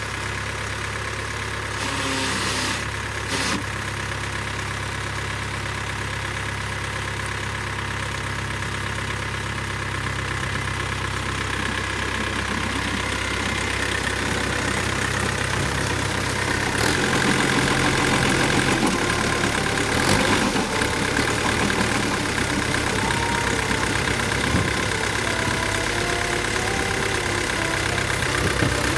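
Sonalika tractor's diesel engine running steadily, getting louder about halfway through as it picks up revs.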